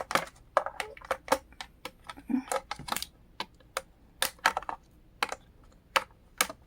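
Irregular clicks and taps of hands working at a toy's plastic packaging, several sharp clicks a second at uneven intervals.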